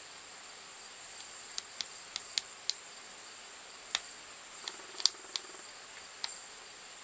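Small, sharp metallic clicks from a pick working the pin stack of a five-pin Squire padlock, about a dozen of them at irregular intervals, as the picker feels for the back pins. A steady, faint high-pitched tone sounds throughout.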